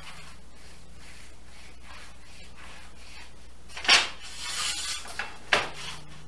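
A long straightedge knocked down and slid across a sheet of plywood: a sharp knock about four seconds in, a rubbing scrape lasting about a second, then a second knock.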